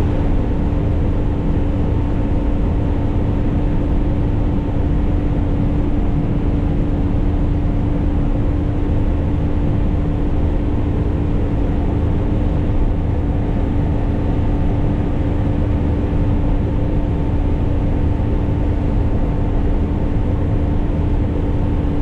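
Cotton stripper running steadily while stripping cotton, heard from inside the cab: an even machine drone with a constant hum that does not change.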